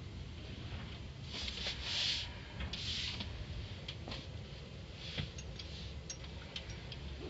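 Automatic car wash heard from inside a car: a steady low rumble with two short hisses, about one and a half and three seconds in, and scattered light clicks.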